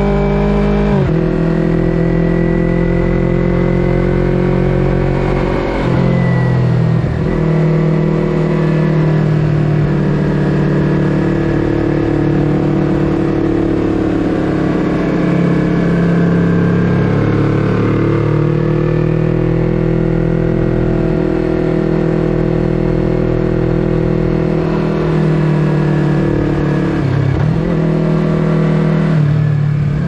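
Yamaha YZF-R3's parallel-twin engine through an Akrapovic full-system exhaust, heard from the rider's seat while riding. The exhaust note rises and falls with the throttle and drops sharply in pitch about a second in, again around six seconds, and near the end.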